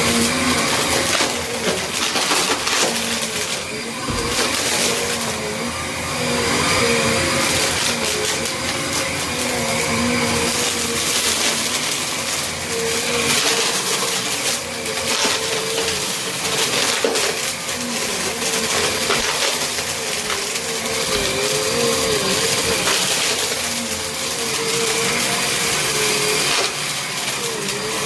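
Small Bissell upright vacuum running, its motor tone wavering as it is pushed back and forth. Continuous crunching and crackling from gritty, hard debris being picked up by the brushroll and rattling up into the machine.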